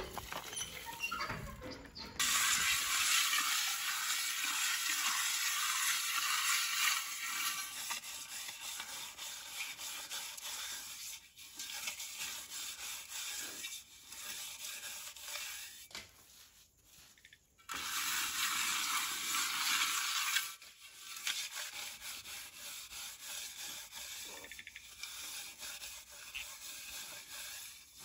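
Hands rubbing and scraping ash over the outside of a steel cooking pot, in long stretches of gritty scraping. The ash coating keeps the pot from being blackened by the cooking fire and makes it easier to wash.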